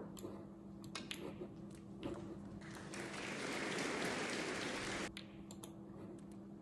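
Snooker crowd applauding for about two and a half seconds in the middle, in response to a potted black. Before it come a few sharp clicks.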